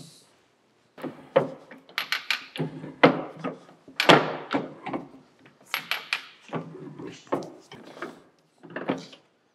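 Arbor press ram driving a 5/16 inch keyway broach through a pulley bore on a final shimmed pass: a string of metallic clunks, clicks and scraping creaks as the broach cuts, with the sharpest knocks about three and four seconds in.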